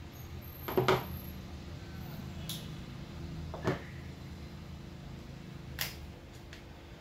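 Tools and a hair straightener being handled on a worktop: a few separate light knocks and clicks, the loudest about a second in, over a low steady hum.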